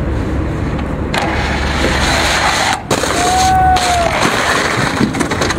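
Heavy vehicle engine rumble with road noise. It breaks off abruptly a little under three seconds in, and soon after a single tone rises and falls over about half a second.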